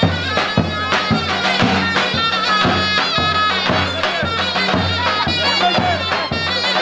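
Loud Turkish folk dance music: a reedy wind melody with quick ornaments over a steady low drone and regular drum beats.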